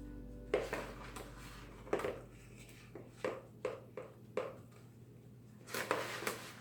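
Irregular taps and knocks of the damp homemade dishwasher-tab mixture being packed into a plastic ice-cube tray, with a longer scraping rustle near the end.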